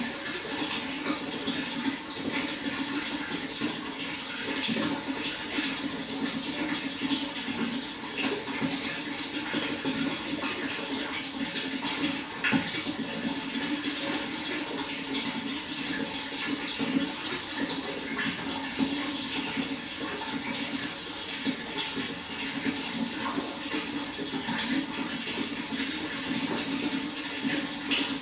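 Water flowing steadily: an even rush with small, irregular splashes.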